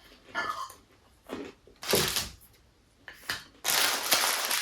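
Close-miked eating of a crunchy chicken taco: a few separate crunches and mouth sounds, the loudest about two seconds in, then a denser run of crackly crunching near the end.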